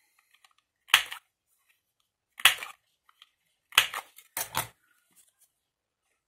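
A handheld paper corner punch snapping shut four times as it cuts the corners of a strip of patterned paper. The last two snaps come close together.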